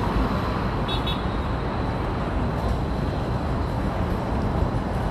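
City street traffic: a car passing close by over a steady rumble of traffic. A short, high double chirp sounds about a second in.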